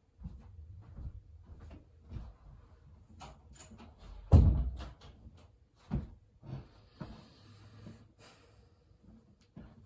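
Scattered knocks and thumps, like a door or cupboard being handled. The loudest is a heavy thump about four seconds in, with sharper knocks around six seconds in and a faint low hum between them.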